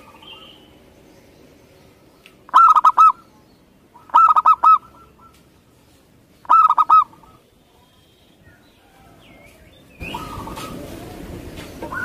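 Zebra dove (perkutut) cooing: three short phrases of rapid staccato notes, each about half a second long and a second or two apart. Near the end the background turns to a louder hiss with fainter bird calls.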